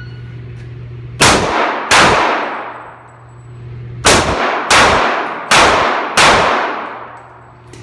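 Six pistol shots fired in a reverberant indoor range: a quick pair about a second in, then, after a pause of about two seconds, a string of four roughly two-thirds of a second apart. Each shot rings off the walls and fades.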